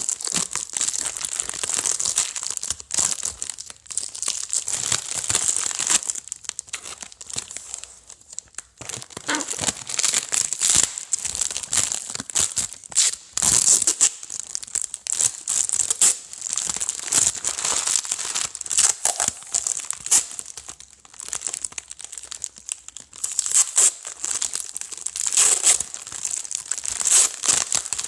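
Shiny black plastic adhesive tape being pulled off its roll, torn and crinkled as it is wrapped and pressed on: a dense, irregular crackling with a few short pauses.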